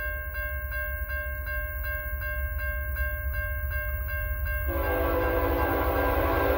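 Level-crossing warning bell ringing at about three strokes a second. About two-thirds of the way in, the horn of the approaching train's lead locomotive, the CN Dash 8 cowl unit, starts one long blast for the crossing and is still sounding at the end.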